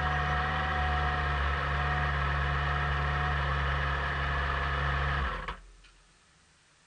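Motorcycle engine idling steadily, then switched off: the sound cuts off suddenly about five seconds in.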